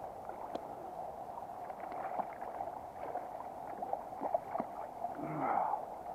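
Shallow river running steadily over stones, with small scattered splashes as a hooked brown trout thrashes at the surface and is drawn into a landing net.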